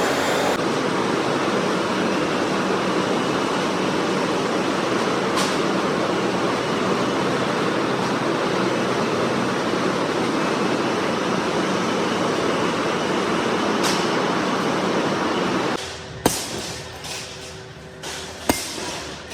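Steady, dense machinery noise of a steel rolling mill; about three seconds before the end it cuts to a quieter background with sharp metal clanks, like steel bars striking each other.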